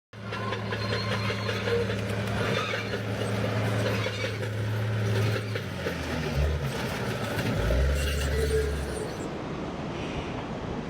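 Heavy equipment engine running steadily, its low tone shifting a little over halfway through, over a broad rushing noise.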